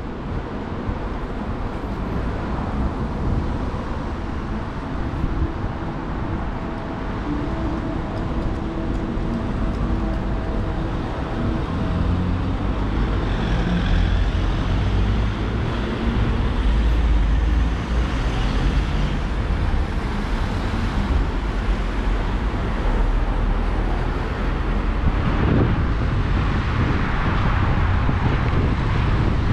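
City road traffic: cars driving past on a wide street, a steady rumble of engines and tyres that grows somewhat louder about halfway through.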